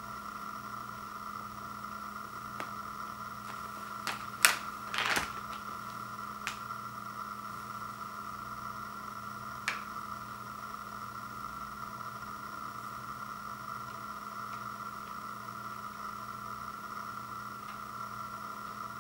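A steady background hum, with a short burst of crinkling and a sharp clack about four to five seconds in as a plastic chip bag is handled and set down on a wood floor; two fainter ticks follow later.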